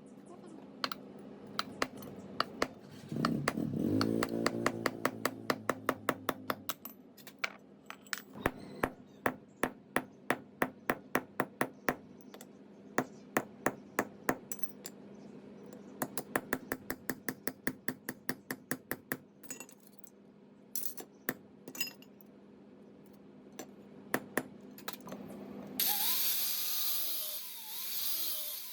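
Hand-tool work on metal parts: a long run of sharp, evenly spaced taps or clicks, several a second, over a steady low hum. The taps thin out, and near the end a loud hiss starts.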